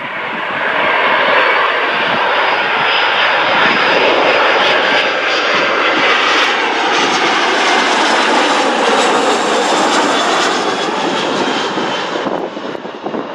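Boeing 737 passing low overhead on approach with its gear down. Its twin CFM56 turbofan engines rise to a loud, rushing roar with a faint high whine that slowly slides down in pitch, then drop away near the end as the jet moves off.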